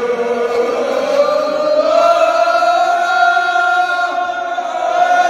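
A group of men chanting together in unison, the mourning chant of a Shia majlis, holding long notes whose pitch slowly rises and falls.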